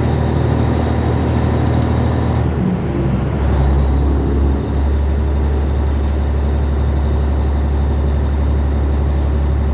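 Cabover Peterbilt 362 truck's diesel engine running steadily under way, with the engine note dropping and picking back up about three seconds in.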